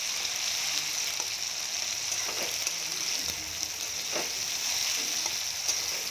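Chopped tomatoes and ginger sizzling in hot oil in a metal kadhai, the steady hiss of frying just after the wet tomatoes went in. A metal spatula stirs, scraping against the pan a few times.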